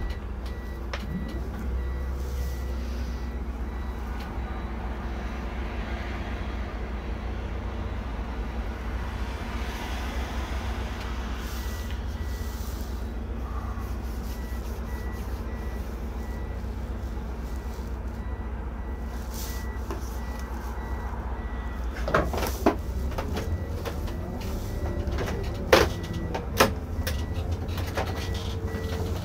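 Irisbus Récréo II coach heard from inside, its engine and drivetrain giving a steady low rumble. Near the end come several sharp knocks and rattles, louder than the rumble.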